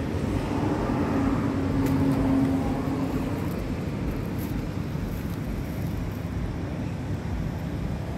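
Road traffic noise: a steady low rumble, with a motor vehicle's hum growing louder and then fading in the first three seconds.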